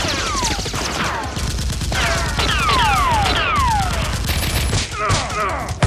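Rapid gunfire sound effects for a Nerf battle, a dense stream of shots. Several falling whistling whizzes drop in pitch over it, two to three at a time, about two seconds in and again near the end.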